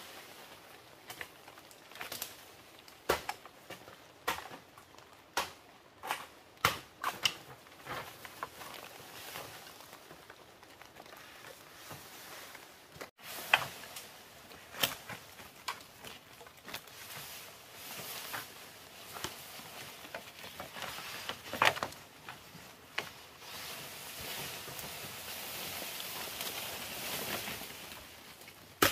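Irregular sharp knocks and clicks, a few of them loud, with a soft hiss swelling near the end.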